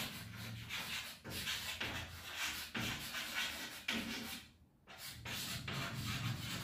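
Chalk writing on a chalkboard: a run of short, scratchy strokes as a word is written, pausing briefly about four and a half seconds in.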